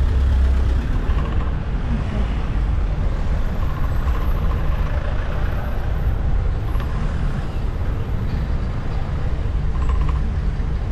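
Steady low rumble of street traffic and wind on the microphone of a camera riding on a moving bicycle, with cars and a delivery truck close alongside.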